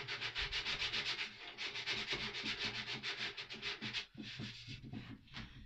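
Hand sanding of plywood edges: abrasive paper rubbed back and forth in quick, even strokes, several a second, thinning out about four seconds in.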